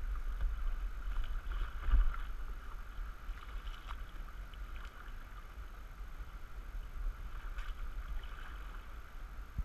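Canoe in swift river current: a steady rush of moving water around the hull and paddles, over a low steady rumble, with one thump about two seconds in.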